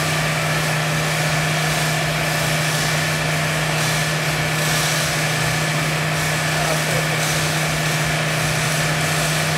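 Steady hum and hiss of a servo-hydraulic loading system, its pump and actuator running continuously to cycle load on a concrete girder in a fatigue test.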